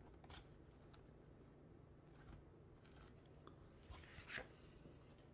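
Faint clicks and rubbing of small plastic building-block parts being pressed together and handled, a few scattered ticks with one slightly louder click near the end, over a low room hum.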